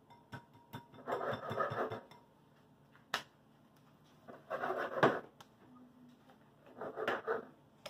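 Food-prep handling sounds: a knife cutting raw chicken on a plastic cutting board and spice jars being opened and handled. Three short bursts of scraping and rattling, with a few sharp clicks between them.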